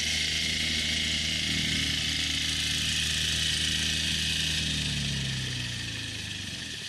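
A construction machine's engine running with a steady hiss over it. Its pitch falls and it fades about five seconds in.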